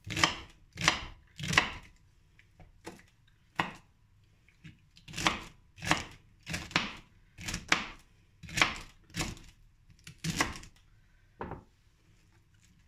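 Kitchen knife chopping celery stalks, one sharp cut after another. Four quick cuts at the start, a pause of about three seconds, then about a dozen more, roughly two a second.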